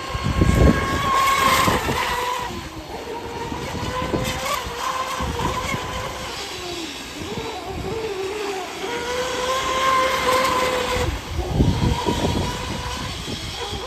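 High whine of the YPC electric outboard on a radio-controlled F1 tunnel-hull racing boat running flat out, its pitch wavering a little through the turns. Gusty wind buffets the microphone, loudest just after the start and again about 11 seconds in.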